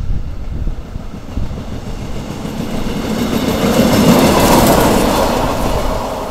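A small work train, a yellow self-propelled track maintenance vehicle with a flat wagon, passing close by on the rails. It grows louder to a peak about four seconds in, then fades as it moves away.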